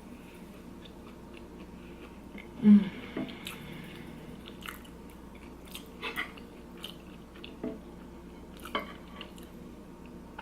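Close-up chewing and mouth sounds of a person eating, with scattered small clicks and crunches. About three seconds in comes one louder, short sound from the throat.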